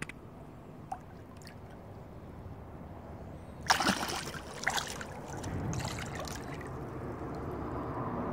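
Lake water splashing and sloshing as a carp is released from a wet retaining sling, with a sharp splash about three and a half seconds in and another about a second later.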